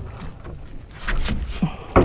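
Light knocks and clicks of a landing net and fishing rod being handled against the hull of a small open fishing boat, over a low rumble, with a sharper knock near the end.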